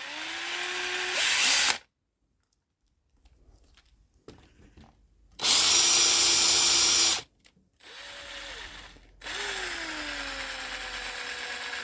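Power drill boring a starter hole into the end grain of a piece of wood with a wood drill bit, in four short runs, its whine rising as it spins up and sinking under load.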